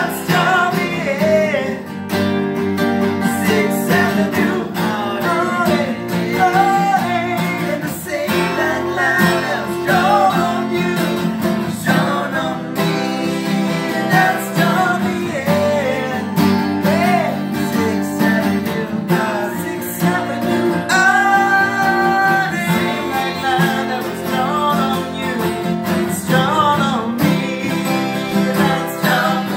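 Two acoustic guitars strummed together, with a man's voice singing over them.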